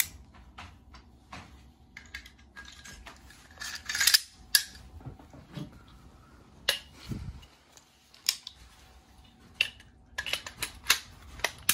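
Metal parts of an AR-15 being handled and fitted back together: irregular clicks and clacks, with a run of sharper clicks near the end.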